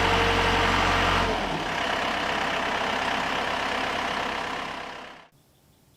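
Case 580C backhoe engine running steadily with a deep note and a steady whine. About a second in, the deep note drops away, and the remaining rushing sound fades out near the end.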